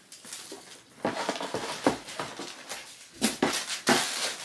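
Tissue paper rustling and crinkling as a sneaker is handled in a cardboard shoebox, with a few sharper knocks of the box.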